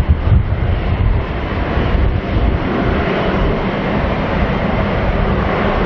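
Airbus A350-900's Rolls-Royce Trent XWB turbofans running at idle on the ground: a steady jet roar with a deep rumble and a faint low steady hum.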